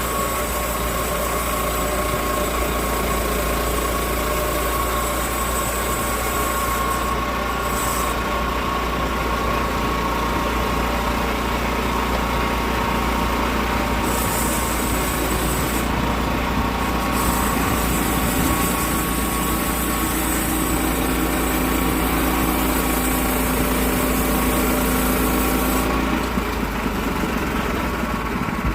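Engine of a log-milling saw running steadily, with a high hiss that drops out briefly three times.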